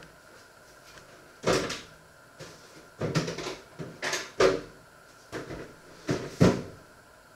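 A series of sharp knocks and clatters from things being handled in a kitchen, about seven in all, the loudest near the end.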